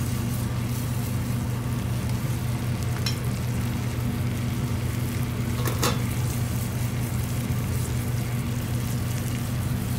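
Melted butter with minced garlic and sugar sizzling in a small saucepan over a gas flame while a silicone spatula stirs it, with a couple of light scrapes about 3 and 6 seconds in. A steady low hum runs underneath.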